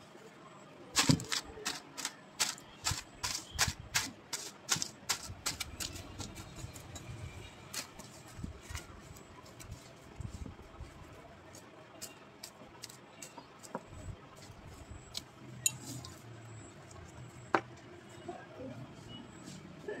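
Light clicks and taps of objects being handled and set down on a table. They come quickly, about two a second, for the first few seconds, then only now and then, with a couple of sharper knocks near the end.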